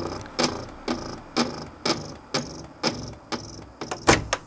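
Magnavox laserdisc player's laser objective lens knocking against the spinning disc, a sharp click about twice a second: the focus/tracking has failed and the lens is hitting the disc. A louder knock comes near the end.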